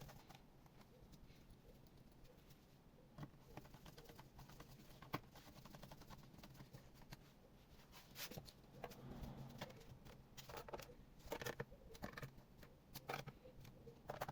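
Faint, irregular clicks and taps, with a cluster of sharper ones near the end, from small hard plastic and metal parts being handled.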